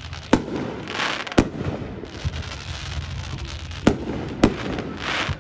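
Fireworks going off: four sharp booms of shells bursting, two near the start and two near the end, with two short rushes of crackle between them.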